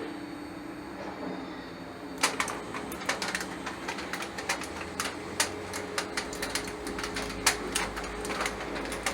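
Hybrid servo stepper motor driving a belt-driven linear actuator axis on a DIY router mill. About two seconds in, a steady motor whine starts, with irregular clicking and ticking from the moving axis.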